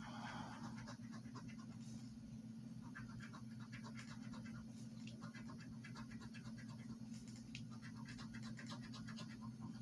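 A copper coin scratching the coating off a paper scratch-off lottery ticket, in short runs of quick rasping strokes with brief pauses between, over a steady low hum.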